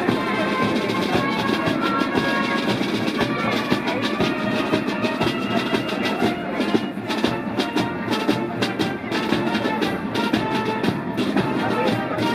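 School marching band playing a march: wind instruments holding notes over a steady drum beat.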